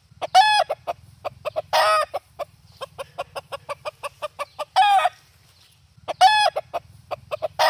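Rooster calling: a fast, steady run of clucks, broken four times by a loud, short call.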